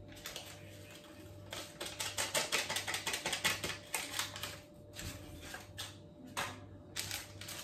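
Rapid light tapping, about seven ticks a second for two to three seconds, as baking powder is tapped out over a bowl of flour, followed by a few separate knocks.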